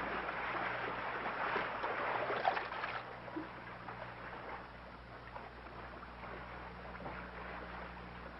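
Sea-and-wind ambience on a ship's deck: a noisy wash, louder for the first three seconds, then settling to a soft hiss with a few faint ticks, over a low steady hum.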